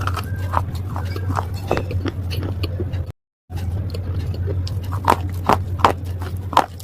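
Slate pieces crunching and cracking in a series of short, sharp snaps over a steady low hum. The crunches get louder and more frequent about five seconds in, and the sound drops out briefly near the three-second mark.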